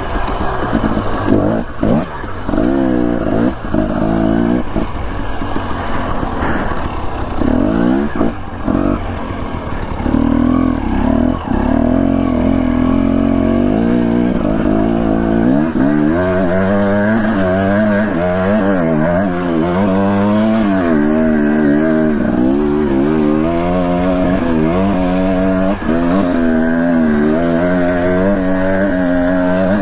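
Dirt bike engine revving up and down under the rider's throttle. For the first ten seconds or so it comes in short blips and checks; from about halfway through it runs in a continuous pull whose pitch keeps wavering.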